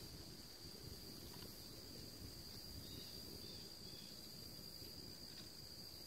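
Crickets trilling in a continuous, steady high-pitched chorus, faint, with a low rumble underneath.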